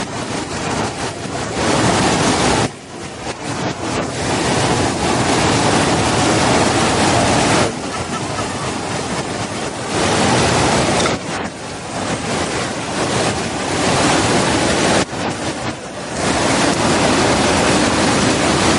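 Waterfall rushing: a loud, dense noise of pouring water whose loudness drops and comes back abruptly several times.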